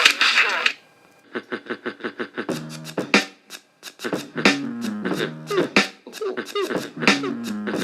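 Background music: a fast beat of sharp percussive hits, like beatboxing, with a low melodic line stepping up and down beneath it. It starts about a second in, after a brief drop-out.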